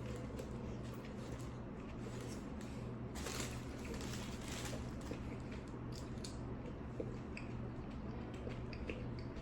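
Close-miked chewing of a Subway tuna sandwich, with short wet mouth clicks scattered through, over a steady low hum.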